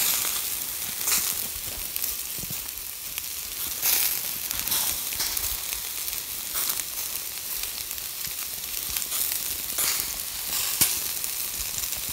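Shashlik skewers of meat sizzling over hot charcoal in a portable mangal: a steady hiss with a sharp crackle now and then. The meat is browned all over and nearly done.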